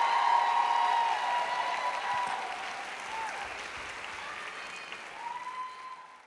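Audience applause after a stage dance, loudest at first and gradually dying away, fading out at the end.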